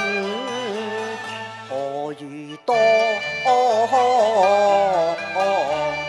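Cantonese opera song sung by a woman, a wavering, ornamented melody over instrumental accompaniment. It breaks off briefly about two and a half seconds in, then comes back louder.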